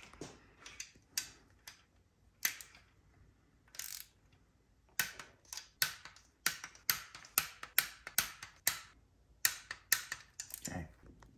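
Hand ratchet clicking in short back-strokes while small 6 mm bolts on an engine's lifter carrier are run down and torqued to about 10 Nm. The clicks are scattered at first, then come about two a second in the second half, and a dull knock follows near the end.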